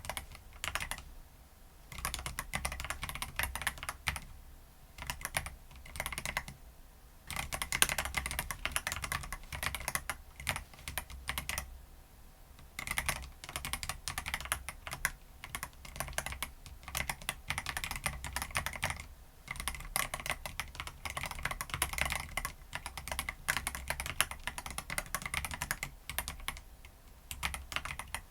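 Typing on a transparent CoolKiller CK75 mechanical keyboard with bare fingertips, no nails: quick runs of key clacks that stop briefly every few seconds, then start again.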